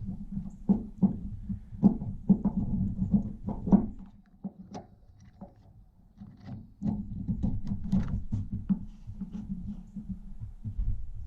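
Hand work on a chainsaw's fuel system: irregular small clicks and knocks as parts are handled, going quiet for a few seconds about four seconds in.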